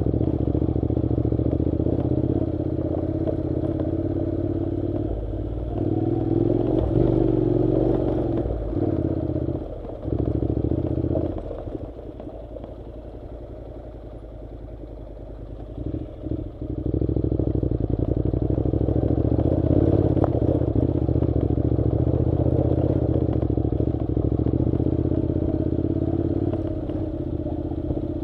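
Honda NC700's parallel-twin engine running as the motorcycle is ridden, with a steady engine note. The engine eases off and goes quieter for several seconds midway, then picks up again.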